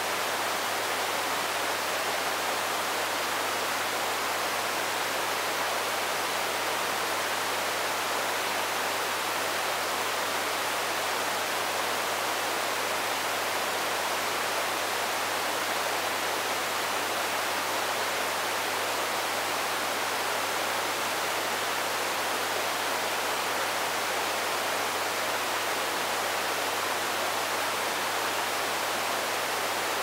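Steady white noise from the noise output of a Moog CP-251 control processor: an even, unchanging hiss, strongest in the upper range and thin in the bass, with a faint low hum beneath it.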